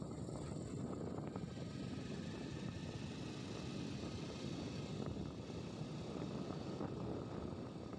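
Steady engine and road noise from a moving vehicle, an even rumble with a faint hiss above it.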